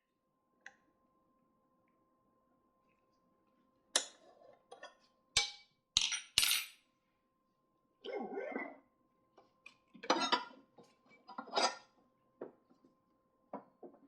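Small hard objects clinking and tapping against each other and a hard surface, in irregular bursts with a few sharper knocks and some scraping, over a faint steady hum.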